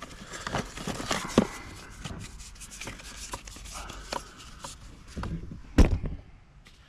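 Tools and containers being handled and put back in van storage racking: a string of small clicks and knocks, with one sharper, louder knock about six seconds in.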